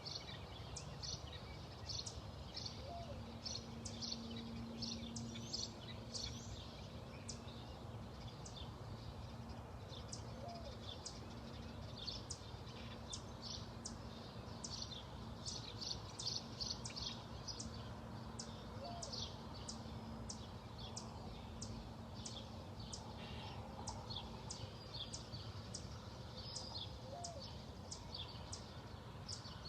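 Small birds chirping, rapid short high chirps one after another without a break, over a steady low hum.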